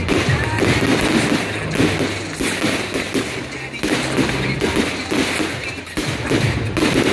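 Aerial fireworks display: shells bursting in quick succession, a dense run of bangs and crackles, with music playing underneath.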